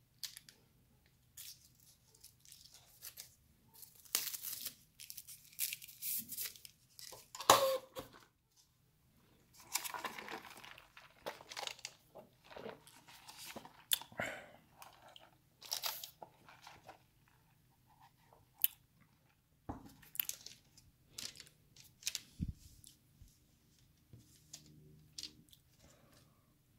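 Crispy fried chicken breading crackling and crunching as the pieces are torn apart by hand, in irregular bursts with one louder crack about seven seconds in, along with chewing.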